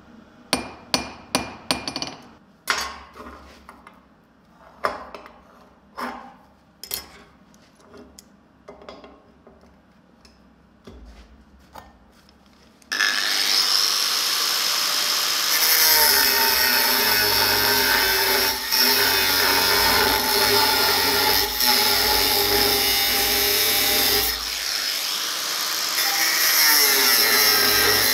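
Hand hammer striking a hot steel bar on an anvil: a quick run of ringing blows, then slower, fainter strikes. About halfway through, an angle grinder with a thin cut-off disc comes in abruptly and runs steadily, cutting through a metal plate.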